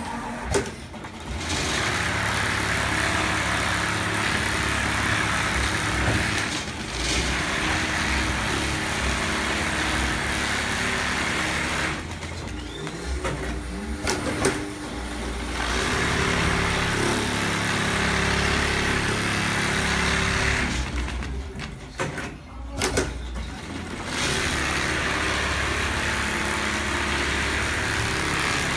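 Jinshao computerized pattern sewing machine stitching a quilting pattern at speed: a steady, fast needle-and-feed rattle. It eases off briefly about twelve seconds and again about twenty-two seconds in, with a few sharp clicks in those pauses.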